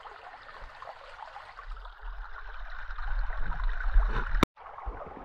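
Shallow creek water running and trickling over stones, with a low rumble building on the microphone over the middle seconds that cuts off abruptly about four seconds in.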